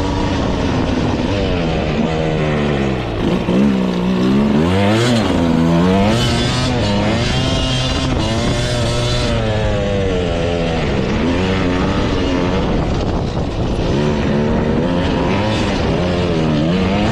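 Dirt bike engine ridden hard, its pitch rising and falling over and over as the throttle opens and closes through the gears, with brief drops in revs about three seconds in and again near thirteen seconds. Heard close up from the rider's helmet.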